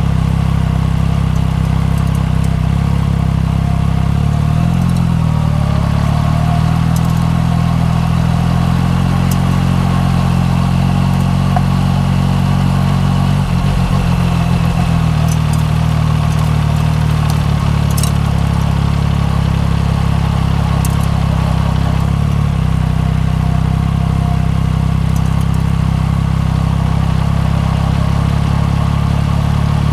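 A 2015 Yamaha MT-09 Tracer's 847 cc three-cylinder engine running through an Akrapovic Racing Line titanium full exhaust system at low, fairly steady revs. Its pitch dips and rises briefly about five seconds in and shifts again around the middle.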